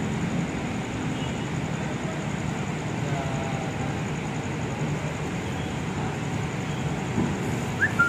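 Steady low rumble of trains at a railway station platform, with a brief high rising chirp just before the end.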